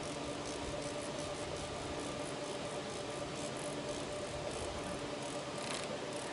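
Hand-operated ratchet strapping tensioner being pumped to tighten plastic strapping, making a quick run of light ratchet clicks, about three to four a second, over a steady machinery hum.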